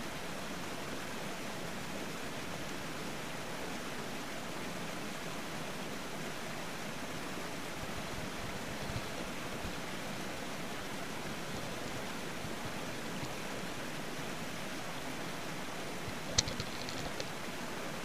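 Steady rushing noise of waterfall-pool water, heard underwater. About two seconds before the end come a sharp knock and a few faint clicks.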